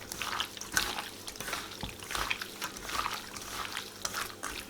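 Raw chicken being mixed by hand-stirring with a wet spice marinade of chilli flakes, salt and Lahori charga masala: soft, wet, irregular mixing sounds.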